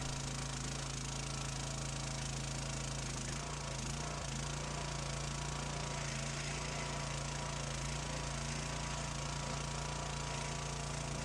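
Log splitter's engine running at a steady speed, an even low hum with no change in load, heard at a low level.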